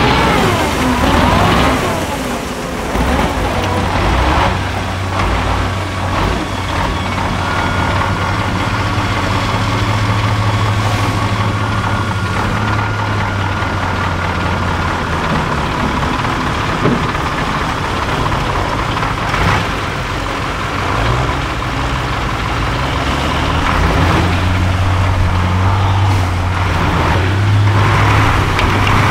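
Diesel engine of a 6x6 trial truck working under heavy load as it crawls through deep mud ruts. Its revs climb near the start, then it runs steadily, rising and falling.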